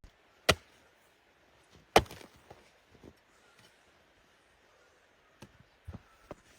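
Two sharp knocks about a second and a half apart, then a few fainter knocks near the end.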